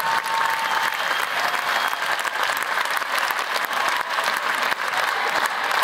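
Large crowd applauding steadily, a dense even patter of many hands clapping.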